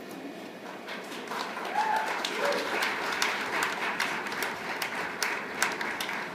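Audience applauding at the end of a dance number, the clapping swelling about a second in, with a brief whoop from the crowd around two seconds in.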